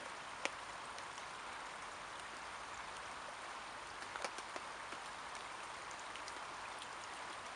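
Steady rain pattering on a tarp shelter overhead, with a few sharper taps from single drops, one about half a second in and several around four seconds in.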